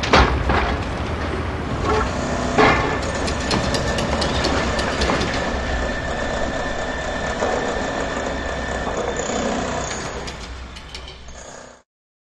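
Heavy construction-site machinery running, with a steady rumble and metallic clanks and knocks. The loudest knocks come right at the start and about two and a half seconds in. The sound fades out near the end.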